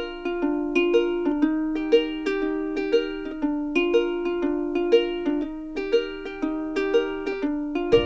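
Background music: an evenly paced plucked-string melody, about three notes a second, each note ringing briefly and fading.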